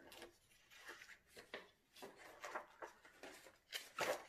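Paper rustling as the pages of a spiral-bound coloring book are turned by hand: a series of soft swishes, the loudest about four seconds in.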